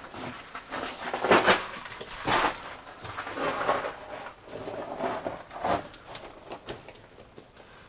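Footsteps on loose rock in a mine passage, irregular, roughly one step a second.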